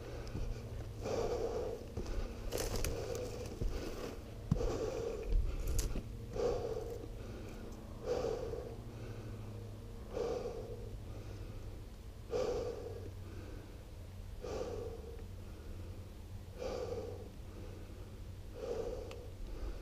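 A person breathing hard close to the microphone while walking over rough brushy ground, one breath about every two seconds.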